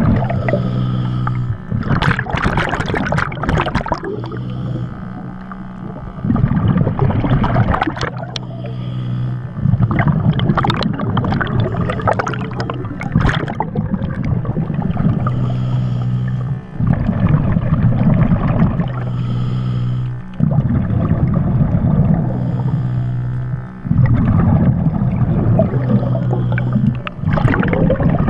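Underwater sound picked up by a diver's camera: bursts of exhaled bubbles gurgling and crackling every few seconds over a steady low hum.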